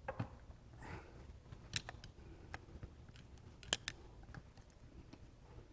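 Scattered light clicks and taps of small metal carburetor parts and tools being handled, two of them sharper about two and four seconds in, as the jets are taken out of a 40 IDF carburetor.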